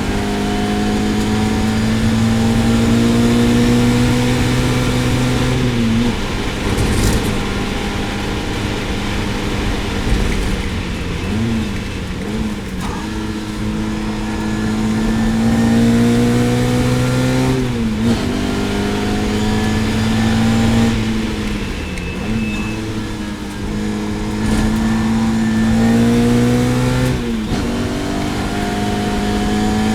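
Lotus Elan GTS race car's engine pulling hard through the gears, its pitch climbing steadily and then dropping sharply at each gear change, about six or seven shifts.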